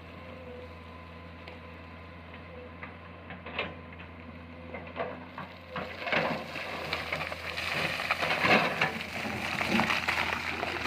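Excavator running with a steady low hum, joined by scattered clicks and then, from about halfway through, a dense crackling rattle that grows louder.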